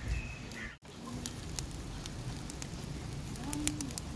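Cooking fire crackling, with scattered sharp pops and ticks over a steady low hiss.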